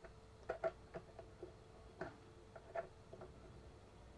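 Irregular light clicks and taps of a small spanner working on the airline fitting as it is screwed tight into the side of an airsoft sniper rifle, about a dozen over four seconds, with a faint steady hum under them.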